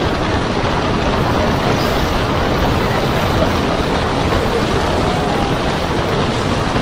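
Steady, loud rushing noise of storm wind and sea water against a ship in rough seas.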